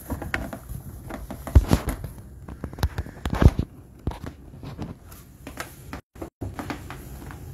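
Rustling and clicking handling noise with scattered knocks and two heavier thumps, about a second and a half in and again at three and a half seconds, as the treadmill's height-adjustable top is moved and set in place.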